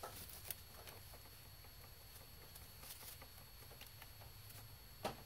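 Faint, scattered clicks and taps of a screwdriver working against the fuel rail and injectors of a GM 3.6 LFX V6 as the rail is pried loose, over a low steady hum. The sharpest clicks fall near the start and about five seconds in.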